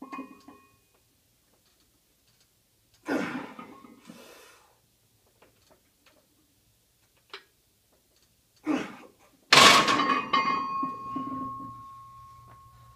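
Hard, forceful exhales during a heavy barbell bench press, then a loud metallic clang as the loaded barbell is racked onto the steel rack hooks, the bar and plates ringing and fading over a few seconds.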